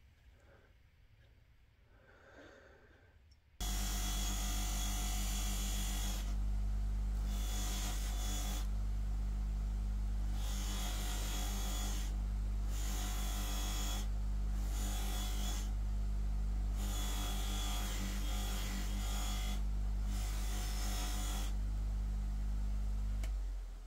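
Electric bench grinder/buffer running with a steady mains hum while a small steel part is pressed against its spinning fibre wheel in repeated passes, a rasping sound that drops away every second or two as the part is lifted off. It starts suddenly about three and a half seconds in, after a few near-quiet seconds, and runs down just before the end.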